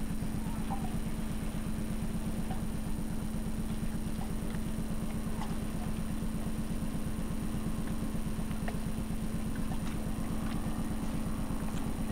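A boat's engine running steadily, heard from on board: a low hum with a fast, even pulse.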